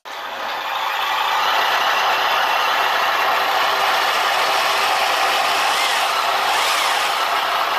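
RC 8x8 military truck running: a steady, engine-like mechanical drone with a rattle, starting abruptly.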